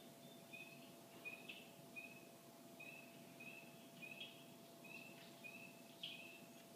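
Faint, short high-pitched calls from a small bird, repeated about once or twice a second, over a faint steady hum.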